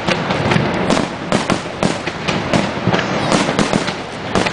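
Aerial fireworks display: shells bursting overhead in a fast, irregular run of sharp bangs and cracks, several a second.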